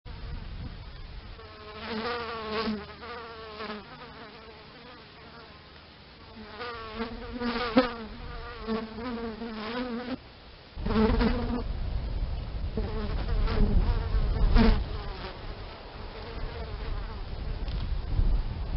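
Bees buzzing in flight, a wavering buzz that swells and fades several times as bees pass close. From about eleven seconds a low rumble sits underneath.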